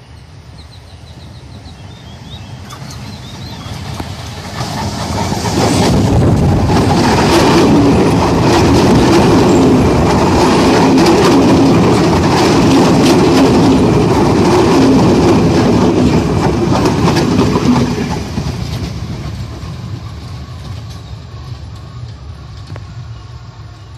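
Sri Lanka Railways Class S11 diesel multiple unit approaching and running past close by, then fading away. Its engine rumbles, and while the coaches go past the wheels keep clattering over the rail joints.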